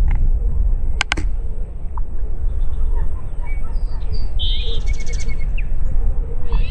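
Wind buffeting the microphone with a steady low rumble, over which songbirds call in short high chirps and a quick run of notes. Two sharp clicks about a second in.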